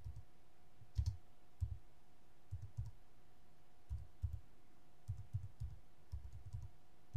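Computer keyboard being typed slowly, single keys and short runs of two or three dull taps with pauses between, over a faint steady hum.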